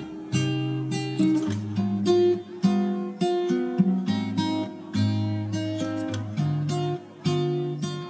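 Acoustic guitar music: plucked notes forming a melody over held low bass notes.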